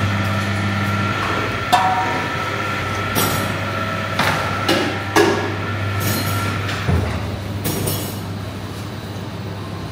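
A metal serving spoon scoops rice from a large cooking pot and knocks and clinks several times against the pot and a metal platter, over a steady low hum.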